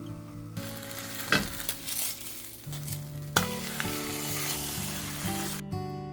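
Food sizzling as it fries in a pan, with a couple of utensil clicks, cutting off about five and a half seconds in. Soft background music plays underneath.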